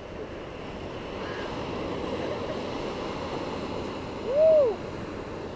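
Ocean surf washing and breaking on the beach, a steady rushing noise. About four and a half seconds in, a short tone rises and falls once, louder than the surf.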